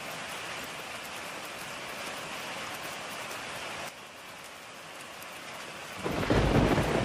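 Heavy rain falling steadily, a little softer from about four seconds in, then a deep rumble of thunder swelling in near the end.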